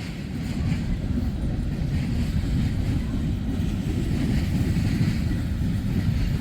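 Freight train cars rolling past in a steady low rumble, with wind buffeting the microphone.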